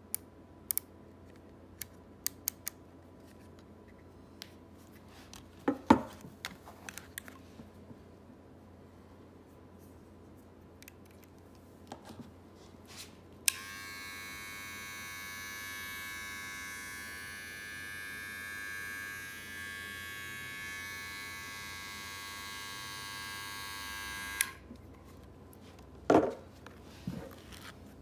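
XPERSIS X-1988S cordless metal hair trimmer switched on about halfway through, running with a steady high buzz for about eleven seconds, then switched off. Before it come light clicks and knocks of the metal clipper being handled, and after it a short clatter.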